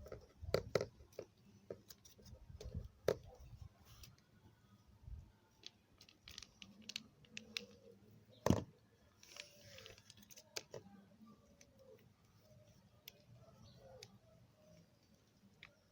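Light clicks, taps and rustles of paper and straws being rolled and glued by hand on a table, with one louder knock about eight and a half seconds in.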